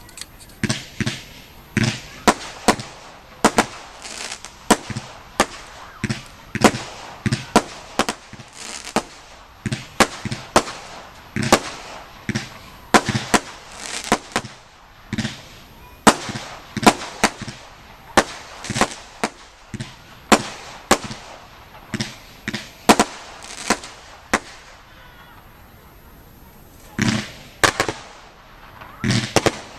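Category F2 consumer fireworks going off: a rapid series of sharp bangs, about two a second, with a short lull about three quarters of the way through before a few more bangs.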